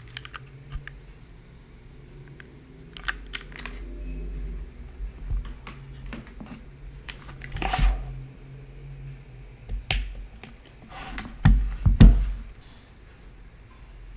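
Typing on a Geonworks Frog Mini 60% mechanical keyboard with broken-in Cherry MX Brown tactile switches, an aluminium plate and GMK keycaps: an irregular run of keystroke clicks, with a few louder, deeper strokes in the second half. The builder finds the board's sound somewhat hollow, above all in the spacebar.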